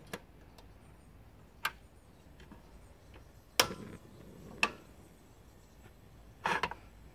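A few isolated clicks and knocks of kitchen utensils being handled at a table: light clicks, a louder knock about three and a half seconds in, and a short clatter near the end as a knife is picked up.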